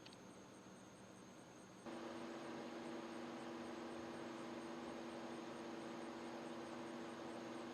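Faint steady hum with a couple of held low tones, stepping up in loudness about two seconds in and then holding steady.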